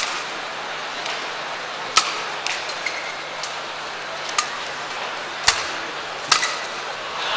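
Badminton rally in an arena: a series of sharp racket-on-shuttlecock hits one to two seconds apart over steady crowd murmur, the crowd noise swelling near the end as the rally finishes.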